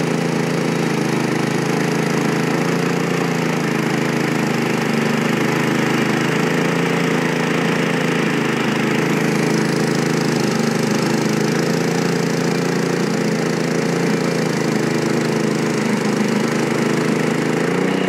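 Portable band sawmill running steadily, its gas engine humming under the hiss of the band blade cutting through a log.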